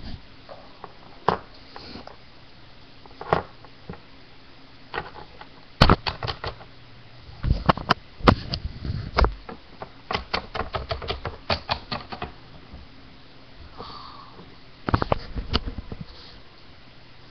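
Hard plastic Littlest Pet Shop toy figure knocked and tapped against a hard surface as a hand moves it about: irregular sharp clicks, some single and some in quick runs, over a faint low steady hum.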